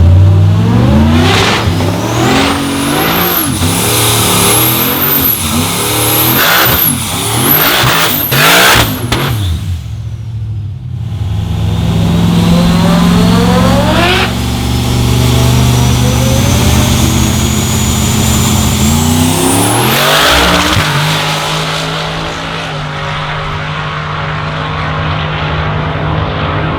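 Turbocharged 427 LSX V8 of a drag-built Holden VE Commodore, revving up and down several times with high whistles for about ten seconds. Then comes one long full-throttle pull with a steadily rising whine, and after that a steadier, lower engine note.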